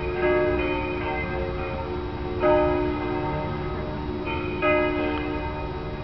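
Several church bells ringing together, their long tones overlapping, with a fresh louder strike about two and a half seconds in and again near the five-second mark.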